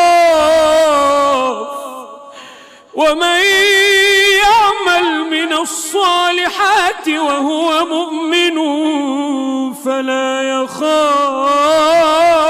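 A man reciting the Quran in a melodic chant, drawing out long held notes with wavering, ornamented pitch. There is a short pause for breath about two to three seconds in.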